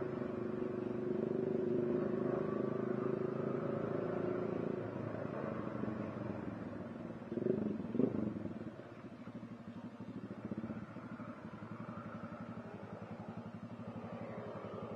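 Yamaha XSR 155 single-cylinder engine on its stock exhaust, running steadily as the bike rolls slowly. About halfway through it drops to a quieter idle with even, rapid pulses.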